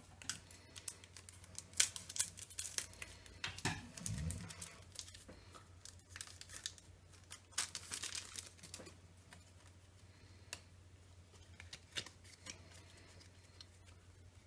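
Foil booster pack of Panini Adrenalyn XL trading cards crinkling and being torn open by hand, in several short bursts of crisp rustling and clicks, with a soft thump about four seconds in. A faint steady hum runs underneath.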